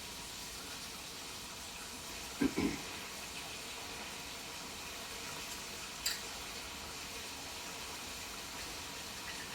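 Espresso machine on its steam setting, giving a steady hiss. A brief double knock comes about two and a half seconds in, and a click about six seconds in.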